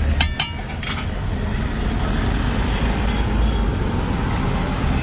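Steady low rumble of road traffic, with two or three sharp ringing metal clinks in the first second, as of cooking utensils striking a pan.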